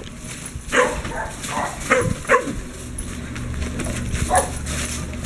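A puppy barking: about five short, sharp barks, four in quick succession in the first half and one more a couple of seconds later.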